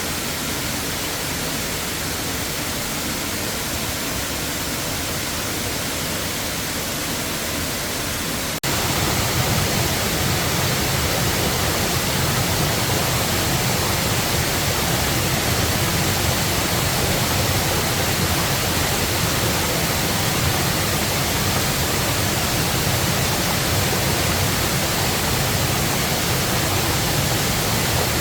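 Rushing water from a waterfall or stream: a steady, full hiss. About eight and a half seconds in it cuts abruptly to a louder, deeper rush.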